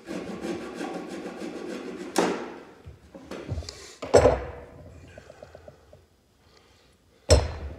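Wooden dowels being knocked into glued holes in the corners of a wooden beehive box: three sharp knocks, about two seconds in, about four seconds in and near the end, the last two the loudest. Before the first knock there are a couple of seconds of rough, hissing noise.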